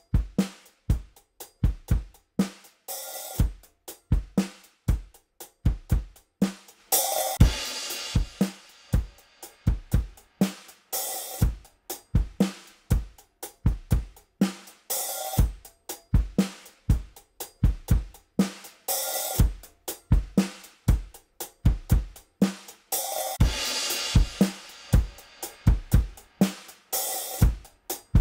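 A recorded drum kit groove of kick, snare, hi-hats and cymbals, the drum bus compressed by a WesAudio Beta76, a 1176-style FET compressor. The beat repeats evenly, with a cymbal crash or open hi-hat about every four seconds.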